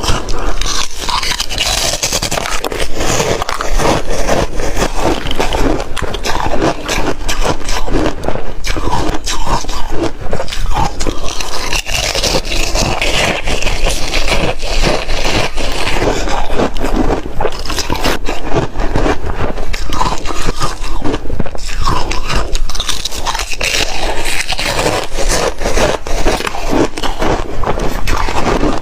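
Reshaved refrigerator ice being bitten and chewed up close to the microphone: a dense, unbroken run of crunching and crackling.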